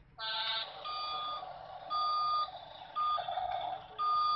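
Toy remote-control excavator's electronic reversing beeper sounding four beeps, about one a second, over its steady motor whir, after a short electronic tone near the start.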